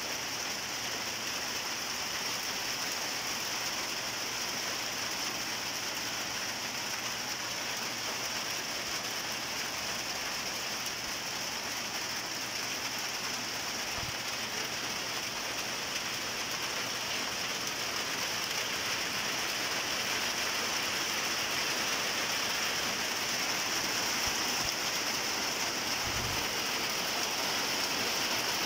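Steady rain falling, an even hiss without a break, getting a little louder in the second half.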